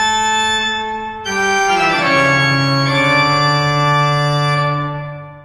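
Music edited in: held organ-like keyboard chords, shifting to a new chord a little over a second in and fading out near the end.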